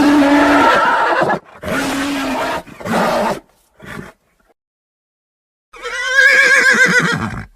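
Horse vocalising: three rough calls in the first three seconds, a short burst about four seconds in, then after a pause a whinny with a quavering pitch near the end.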